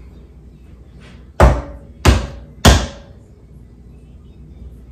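Three loud bangs in quick succession, about two-thirds of a second apart, each with a short ringing tail.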